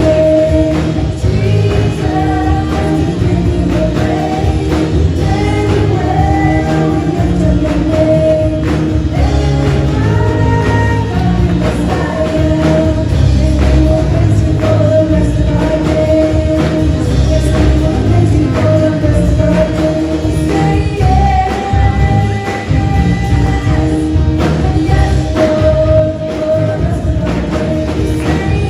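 Gospel-style church worship music: voices singing held, sustained notes over a full band with percussion.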